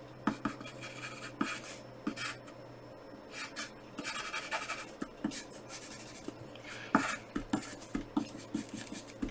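Wooden pencil drawing on graph paper: an irregular run of short scratching strokes and light taps of the lead on the paper.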